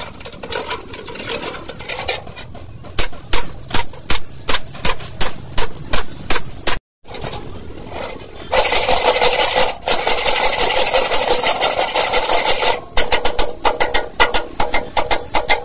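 Truck wheel-hub taper roller bearing being scrubbed clean in a tray of solvent: sharp rhythmic scraping strokes about two a second, then a few seconds of steady fast scrubbing, then separate strokes again near the end.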